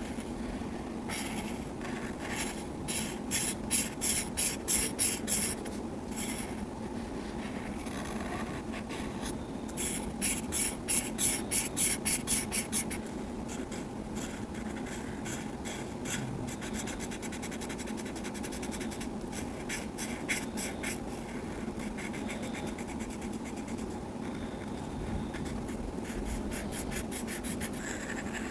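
Colouring on paper: a pencil or marker scratching in quick back-and-forth strokes, about four a second, in two louder runs, with lighter scratching between.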